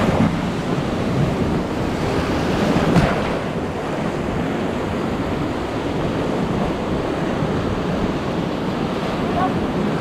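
Rushing white water of the Nile, a loud, steady hiss of noise that swells briefly about three seconds in, with wind buffeting the microphone.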